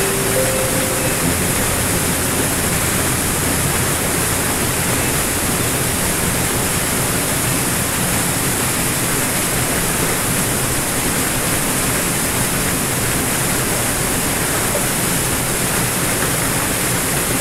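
Small waterfall pouring over a boulder into a churning pool: a steady, even rush of water.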